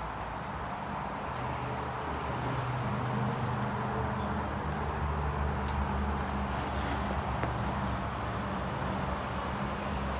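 A motor vehicle's engine running with a low steady hum, louder from about two and a half seconds in, over a steady outdoor hiss with a few light clicks.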